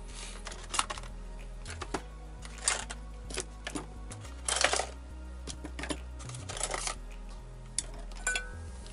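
Irregular clicks and clatter of rice cooker parts being handled, loudest about halfway, over background music with a steady bass line.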